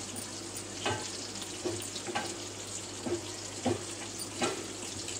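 Hands crumbling a block of cheese onto a paper plate: short crackly scrapes, roughly one every half second to a second, over a steady hiss and low hum.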